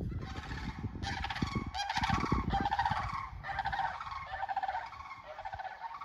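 Sandhill cranes calling: loud rolling, rattling calls repeated one after another, tapering off near the end.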